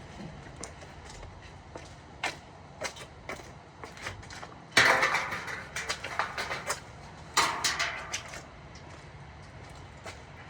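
Metal clanking and rattling from roof-rack parts being handled: scattered knocks, then two louder bursts of clatter, the first about five seconds in and the second about seven and a half seconds in.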